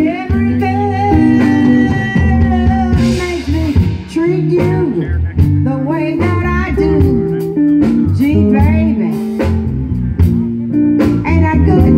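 Live blues band playing: guitar and drums with a singer's voice, bending notes over a steady drum beat.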